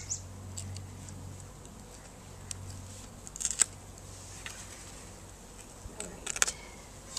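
Steady low hum of a package of honey bees, with a few sharp scrapes and clicks as a metal hive tool pries up the package's plywood cover; the loudest clicks come around the middle and near the end as the cover comes free.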